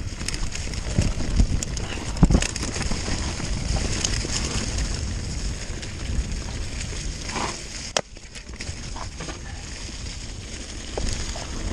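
Mountain bike rolling over a rough trail: tyres crunching and crackling on the ground, with scattered sharp knocks and rattles from the bike, the sharpest about two seconds in and again near eight seconds.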